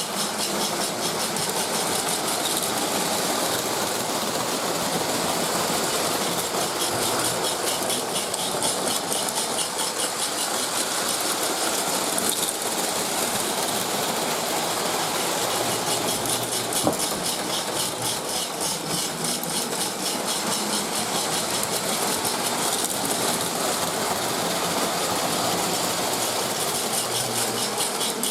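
Lionel MPC-era Pennsylvania 2-4-2 O gauge steam locomotive running steadily on three-rail track, its mechanical sound-of-steam unit giving a fast, even chuffing over the rattle of the motor and wheels. A single sharp click about seventeen seconds in.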